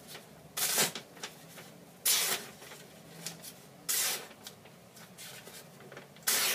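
Steel knife blade drawn across thin paper in four short, noisy strokes about two seconds apart, a test of the blade's edge after sharpening.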